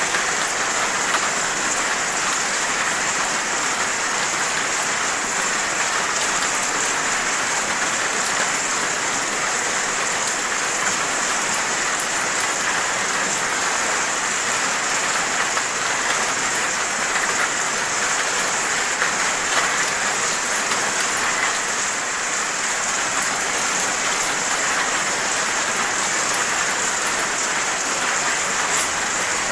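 Steady rain falling, a continuous even hiss of drops on surfaces with fine individual drop ticks, unchanging throughout.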